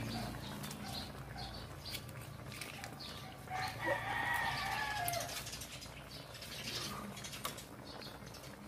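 Chicken feet braise simmering in an aluminium wok over a fire, with scattered crackling pops. A bird calls in the background from about three and a half to five seconds in.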